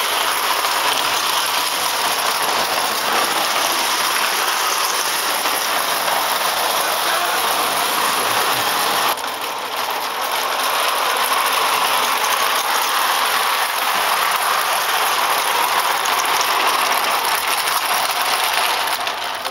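Spring-driven clockwork mechanism of a Bing O-gauge tinplate locomotive running, a steady whirring and rattling of gears, with the train's wheels clattering along three-rail track. The level dips briefly about nine seconds in.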